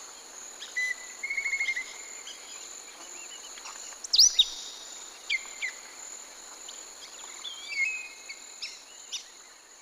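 Wild birds calling over a steady high-pitched insect drone: a short rapid trill early, then a loud sharp down-slurred call about four seconds in, followed by several more sweeping notes.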